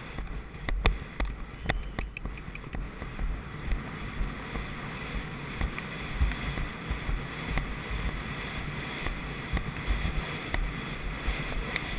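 Wind rushing and buffeting on a helmet-mounted GoPro's microphone as the horse gallops, with dull low thuds of the gait under it and a few sharp clicks in the first two seconds.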